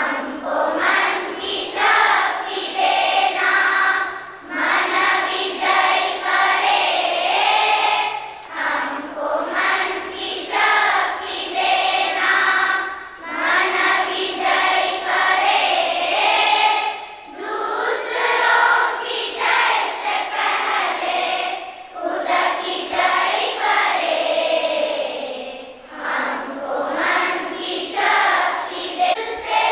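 A schoolchildren's choir singing a prayer song in phrases of about four seconds, with short breaks between them.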